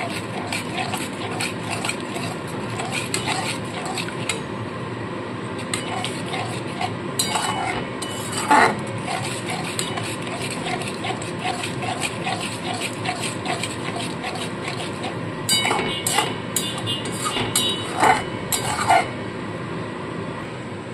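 A metal spatula stirring and scraping a thick masala paste of yogurt and spices around a metal kadai in a steady rhythm of scrapes, with a few louder clanks of the spatula against the pan about two-thirds of the way through and near the end. The masala is being slowly fried (kashano) on low flame.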